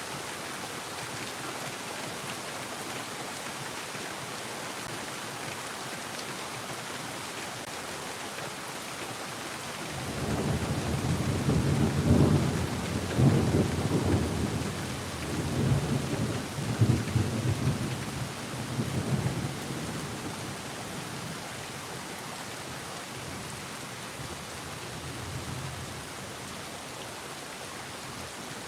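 Steady rain falling, with a long rolling rumble of thunder that builds about ten seconds in, rolls in several surges, and dies away about ten seconds later.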